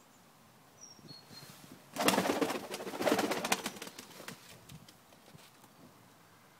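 English Carrier pigeons' wings flapping: a loud flurry about two seconds in, in two bouts lasting about two seconds together.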